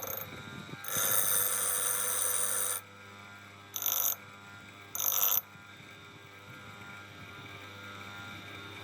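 Electric motor of a water pump converted into a bench grinder running with a steady hum. Three loud bursts of grinding come over it: a long one of nearly two seconds, then two short ones about a second apart.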